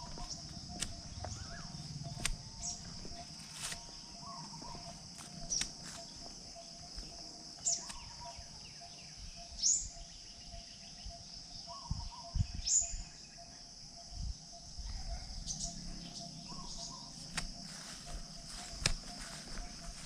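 Outdoor ambience: a steady high insect drone with scattered short bird chirps and calls every second or two.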